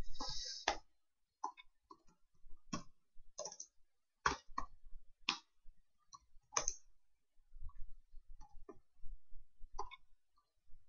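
Computer keyboard typing: separate, irregular keystroke clicks with short pauses between them.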